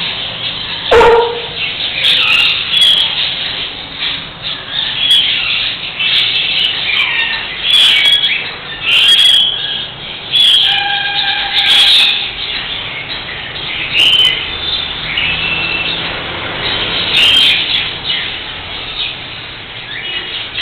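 Cockatiel chirping and calling repeatedly in short, sharp notes, with a loud short sound about a second in.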